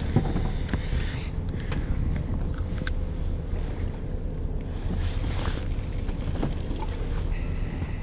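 Fishing boat's engine running steadily with a low hum, wind buffeting the microphone, and a few light clicks and knocks.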